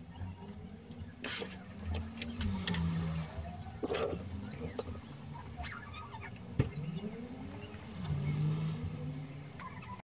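Handling sounds of a tablet being moved and propped upright on a wooden desk: a string of knocks and clicks, the sharpest about two-thirds of the way through, over a low hum that slides up and down in pitch.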